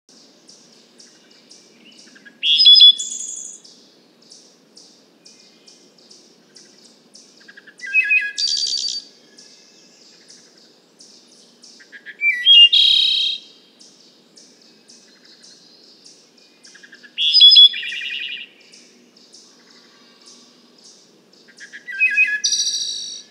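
Wood thrush singing: five song phrases about five seconds apart, each a few clear notes that run into a high, buzzy trill. Underneath, a faint high note repeats about twice a second.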